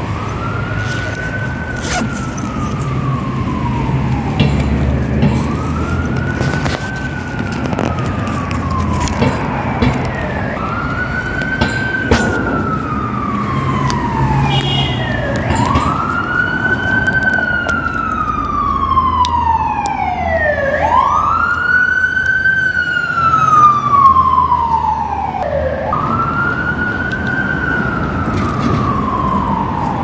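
Emergency vehicle siren wailing: a tone that rises quickly, then slides slowly down, repeating about every five seconds, over a low rumble of traffic.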